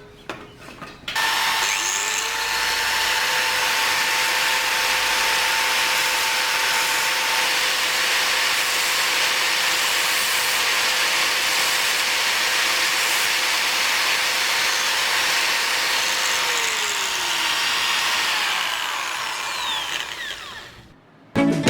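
Small electric power tool, drill-like, running steadily for about twenty seconds with a loud hiss. Its motor pitch rises as it spins up near the start and falls as it slows near the end.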